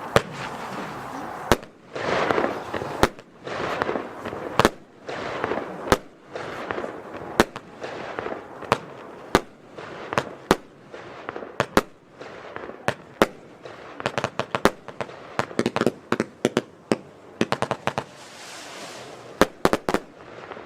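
Weco Sonic Boom F2 consumer firework battery firing: sharp bangs about every second and a half with hissing between them, then quicker strings of cracking reports in the second half.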